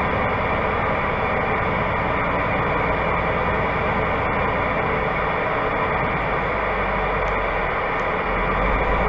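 Steady rumble and hiss inside a semi-truck cab creeping at walking pace, the diesel engine running low under a constant broad hiss.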